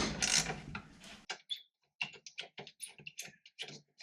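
Small plastic and metal dashboard parts being handled: a dense scraping rattle for about the first second, then a string of light, irregular clicks.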